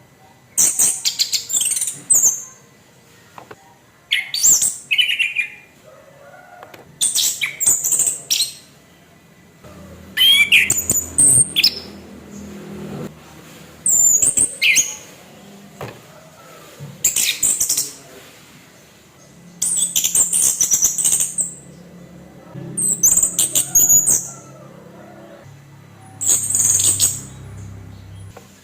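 Orange-headed thrush singing loud, separate song phrases, nine of them about every three seconds. Each phrase mixes harsh scratchy rasps with short sliding whistles.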